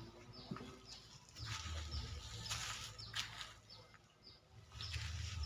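Small birds chirping: many short, high chirps that slide downward, a few each second, over several bursts of hiss.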